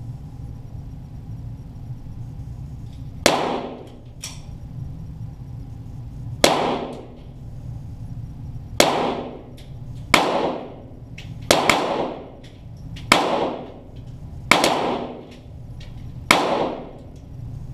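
.22 Walther GSP target pistols firing single shots, heard from beside the target: about nine sharp reports at irregular intervals, two of them close together near the middle, each followed by a short echoing decay. A steady low hum runs underneath.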